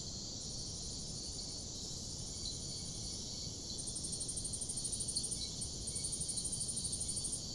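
High-pitched insect chirping in rapid pulsed trains, with short breaks between them, growing louder about halfway through.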